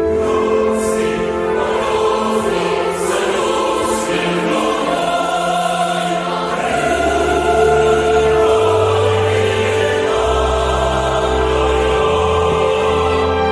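Choral music: a choir singing long held notes over deep bass notes that change every second or two.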